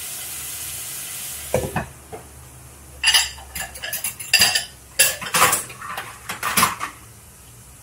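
Chicken pieces sizzling in oil in a frying pan, then a knock as a glass lid is set on the pan a little under two seconds in, after which the sizzle goes much quieter. Then a series of sharp clatters as plastic plates and cups are moved about in a dish rack.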